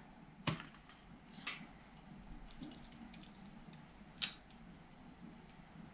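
Faint handling clicks as a glass screen protector is set into a plastic alignment tray over a phone. There are three sharper clicks, about half a second, a second and a half and four seconds in, with fainter small ticks between them.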